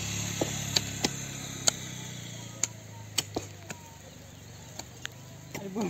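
Pickaxes striking stony soil while digging, about ten sharp, irregular strikes. A low engine hum in the background fades away over the first few seconds.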